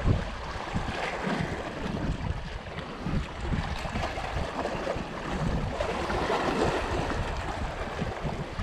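Wind buffeting the microphone in irregular gusts over small waves lapping and washing against shoreline rocks.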